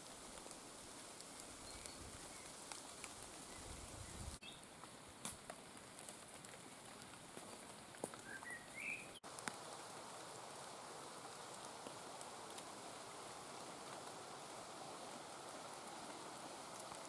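Light rain falling, with scattered louder drops ticking close by and a few brief bird chirps around the middle; the rain grows slightly heavier about half-way through.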